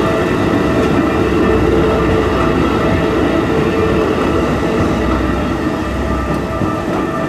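Electric train running through a level crossing: a steady, loud rumble of the cars passing, with a few steady tones held above it, easing slightly near the end.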